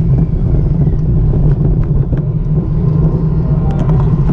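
Steady low rumble of wind and road noise on a GoPro Hero5 Session riding along on a road bicycle, with a few light clicks from the bike.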